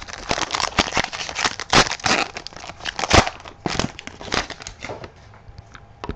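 Foil hockey-card pack wrapper crinkling and tearing as it is ripped open by hand, in a rapid irregular crackle that thins out about five seconds in.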